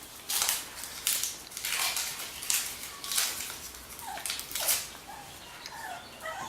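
Puppies scuffling and tugging at a rope toy: a string of short rustling scrapes, with a few faint high squeaks from the puppies in the second half.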